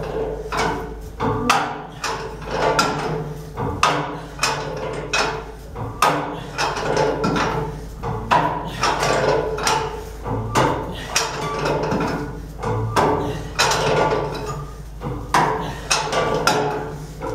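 Irregular metal knocks and clanks, about one or two a second, some ringing briefly, as a steel stay tube is worked into the tubeplate of a Cochran boiler, over a steady low hum.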